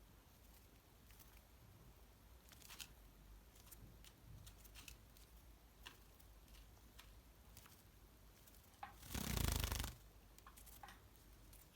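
Java sparrow at its bath: small scattered clicks and taps, then a burst of splashing and wing fluttering for about a second, nine seconds in.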